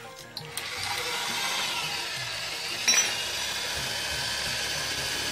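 Handheld electric drill starting up about a second in and running steadily, boring into a broken brake bleeder nipple in a motorcycle's disc-brake caliper. There is a brief louder spike about three seconds in.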